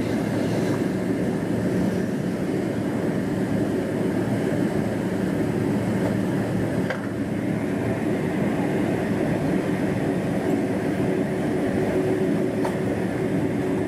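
Cabin noise of a Boeing 777-300ER taxiing: a steady low drone from its GE90-115B engines at taxi power, mixed with the rumble of the airframe rolling over the concrete taxiway. A faint click sounds about halfway through and another near the end.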